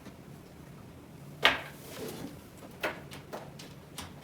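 Knocks and clicks of small objects being handled on a desk: one sharp knock about a second and a half in, then a scatter of lighter clicks near the end.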